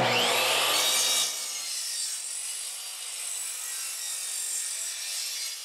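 Craftsman miter saw starting with a rising whine and its blade cutting through two stacked pine boards at once. The sound is loudest for the first second or so, then settles into a steadier, quieter high whine.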